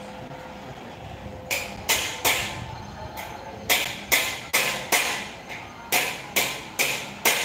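A run of sharp impacts, about a dozen at roughly two to three a second, starting about a second and a half in with a short pause near the middle.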